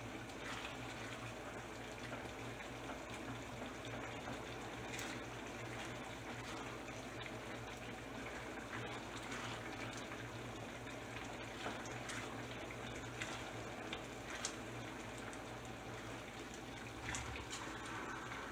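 Tomato-and-ramen stew simmering softly in a skillet, with a silicone spatula stirring through it and giving a few light taps and scrapes against the pan.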